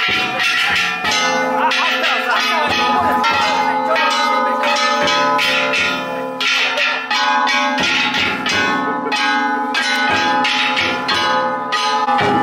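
Large brass hand-held gongs (kane) of an Ishidori festival float struck over and over at several strikes a second, a dense clanging din of ringing metal, with a big taiko drum beating underneath.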